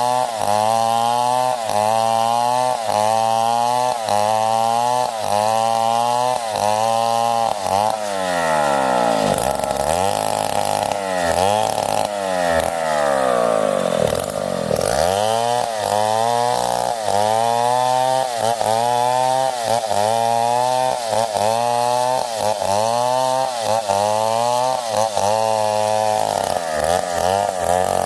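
Stihl 070 two-stroke chainsaw cutting wood under load. Its engine pitch dips and recovers in a steady rhythm, about one and a half times a second, with a few slower, deeper dips around the middle.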